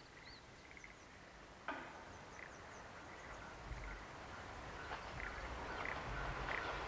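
Birds chirping over quiet countryside ambience, with one sharp click a little under two seconds in. From about halfway a low rumble grows steadily louder: a diesel train approaching.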